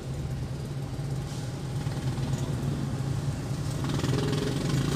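Toyota Avanza's engine and road noise heard from inside the cabin while driving, a steady low hum that grows louder about four seconds in.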